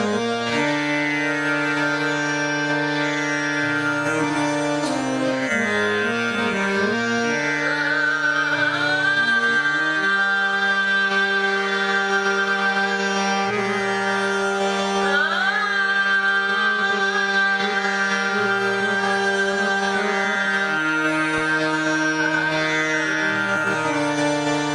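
Hindustani classical vocal in raga Rageshree: a woman sings long held notes with sliding, wavering ornaments. A harmonium follows her melody in sustained notes over a tanpura drone.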